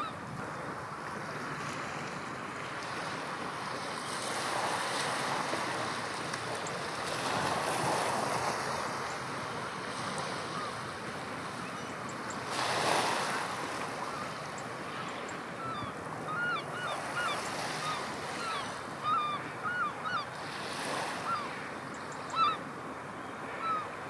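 Strong wind and rough surf make a steady rushing noise that rises and falls in gusts, loudest about thirteen seconds in. In the second half a bird gives a string of short, sharp calls over it.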